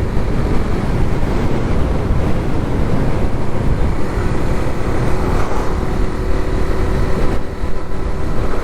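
Wind rushing over the microphone of a moving motorcycle, with steady engine and road noise beneath it.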